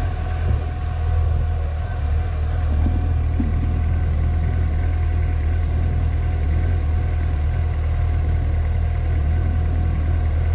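Suzuki GSX-S750's inline-four engine idling steadily with the motorcycle stopped.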